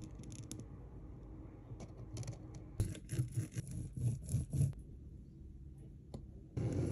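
A rubber brayer rolled back and forth across the surface of a carved wooden coaster, inking it black: a quick run of about eight rubbing strokes starting about three seconds in.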